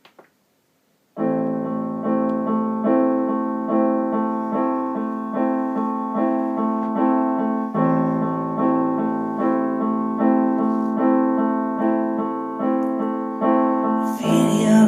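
Piano intro of a song: repeated chords struck about twice a second, starting about a second in. Near the end a hissy, louder sound joins the piano.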